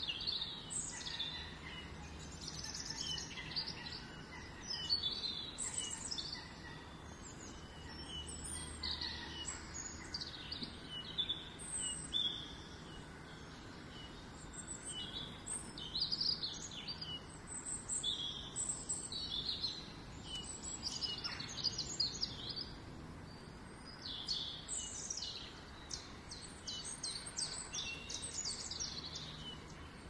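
Small garden songbirds calling and singing, a busy run of short, high chirps and trills that come and go all through, over a faint low background hum.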